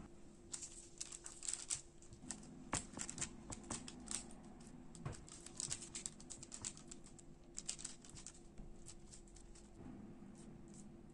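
Baking paper crinkling with light taps as hands press and shift soft dough rolls on a parchment-lined baking tray, in quick irregular clicks that stop near the end.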